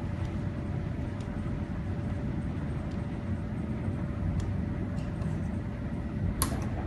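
Steady low machine hum with a faint steady whine, over which a few light clicks come from keys being pressed on a CNC lathe's control panel, with a sharper click about six and a half seconds in.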